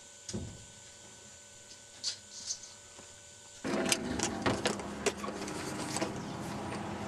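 A few faint knocks in a quiet room, then about halfway through a sudden jump to steady rustling handling noise full of clicks and knocks as a camcorder is carried out through a door, with footsteps on grass.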